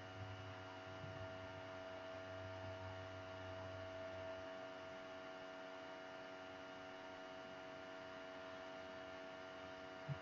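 Quiet, steady engine-room hum made up of several steady tones. Its lowest part fades out about four seconds in, and there is a brief knock right at the end.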